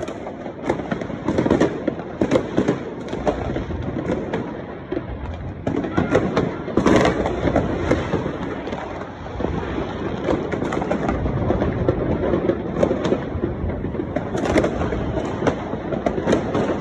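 Fireworks going off without pause: a dense barrage of bangs and crackles, with the loudest crack about seven seconds in.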